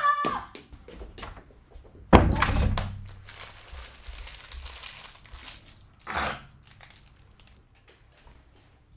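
A loud thunk about two seconds in, then a small wrapper crinkling as it is unwrapped by hand, with a short louder rustle about six seconds in.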